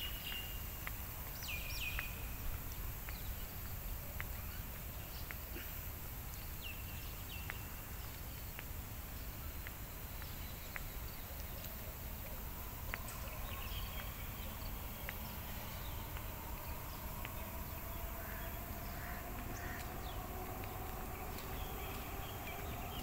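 Outdoor ambience: scattered short bird chirps over a steady low rumble. A faint hum rises slowly in pitch through the second half.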